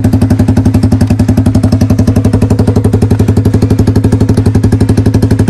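Yamaha R15's single-cylinder four-stroke engine idling through a truck-style 'suos' exhaust pipe: a loud, fast, even throb that holds steady.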